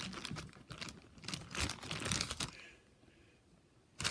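Plastic bag crinkling in irregular bursts as a Rubik's cube is handled inside it, going quiet for about the last second.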